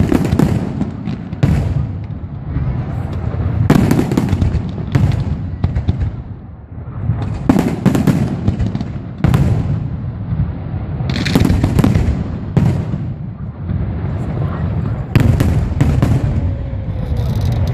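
Fireworks display: shells bursting in quick succession, a steady run of sharp bangs, one to several a second, over a continuous low rumble.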